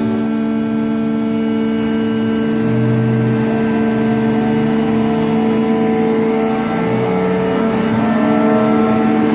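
Kawasaki K3SP36 hydraulic pump running, a loud, steady mechanical whine made of several held tones. The pitch shifts slightly near the end.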